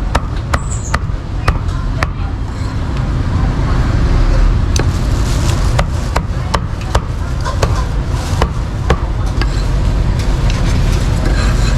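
Cleaver chopping meat on a wooden board in sharp, irregular knocks, about one or two a second, over a steady rumble of street traffic.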